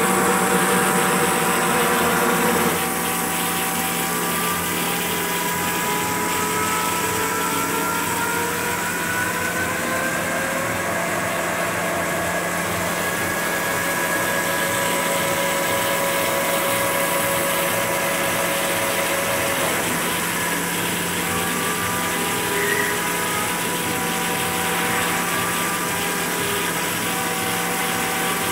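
Ajax FEL series CNC lathe turning a metal workpiece under flood coolant: a steady machine whine with coolant spray hiss. A few tones slowly rise in pitch over the first half, and the overall sound drops a little about three seconds in.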